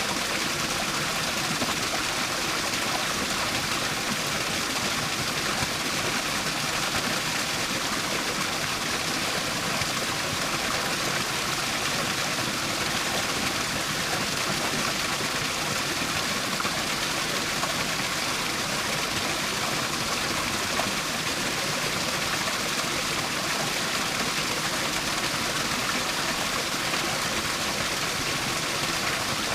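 Small waterfall splashing steadily over rocks, an even rushing of falling water.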